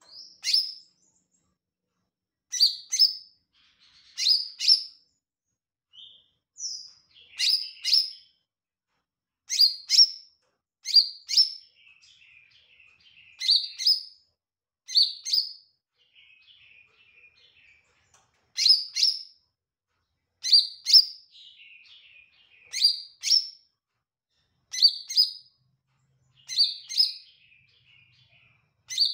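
Caged green leafbird (cucak ijo) singing steadily: sharp, high notes, often in quick pairs, every second or two, with softer twittering chatter between them.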